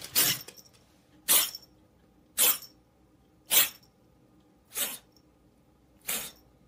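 A kitten making short, sharp, breathy huffs, six in a row about a second apart.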